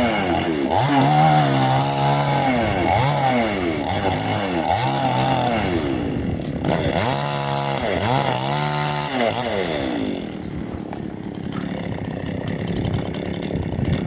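Chainsaw cutting a coconut palm, its engine revving up and down over and over, the pitch rising and falling about once a second with a brief dip about six seconds in. The engine drops away about ten seconds in.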